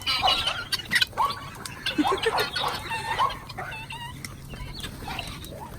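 A flock of chickens clucking, many short calls overlapping, let out to feed on scattered scratch.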